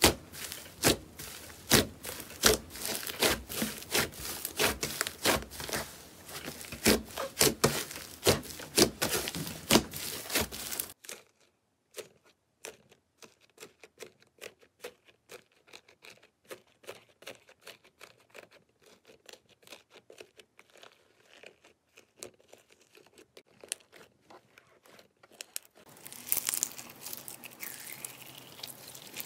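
Hands pressing and kneading slime, with a dense run of crisp crackles and pops for the first ten seconds or so. Then a quieter stretch of sparse soft clicks as fingers dig into a tray of green slime. Near the end comes a rustling crunch as pink foam-bead slime is stretched.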